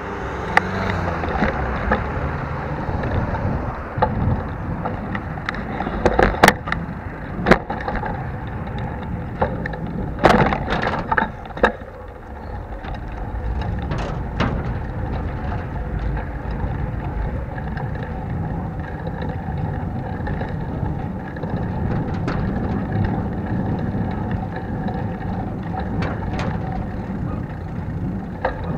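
Bicycle ride heard through an action camera clamped to the handlebar with no protective housing: a steady rumble of tyres and rattling bike, with several sharp knocks and clatters in the first twelve seconds or so, then steadier riding.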